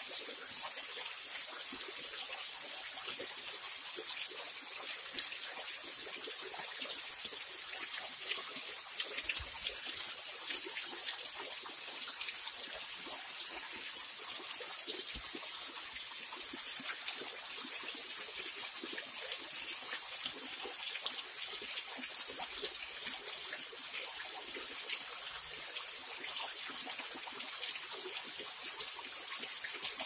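Small waterfall: a thin curtain of water falling off a rock ledge into a shallow pool, splashing steadily. It is a high, even wash of sound dotted with many small drop splashes.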